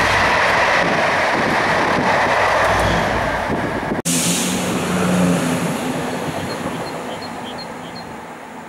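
A Colas Rail Class 67 diesel-hauled test train passing: first a loud rushing of coaches and wheels going by close, then, after a sudden break about four seconds in, the low steady engine note of a Class 67 locomotive, an EMD two-stroke V12 diesel, fading away.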